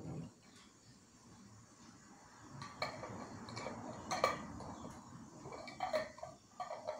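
Screw lids being twisted shut onto two glass preserve jars: an uneven scraping rattle of the lid threads with several sharp clicks, the loudest a little past four seconds in.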